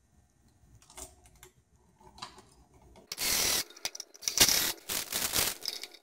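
Cordless drill with a screwdriver bit driving an electrical outlet's mounting screws. After a few faint clicks, it runs in a short burst about three seconds in, then in several shorter bursts a second or so later.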